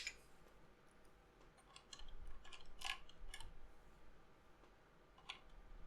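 A few faint, scattered plastic clicks and taps as a mechanical keyboard switch and its keycap are handled and fitted back onto the keyboard.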